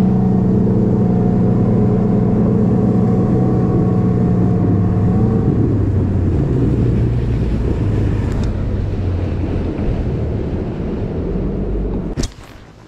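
Bass boat's outboard motor running steadily under way. It slows with a slight drop in pitch about halfway through, then cuts back sharply near the end.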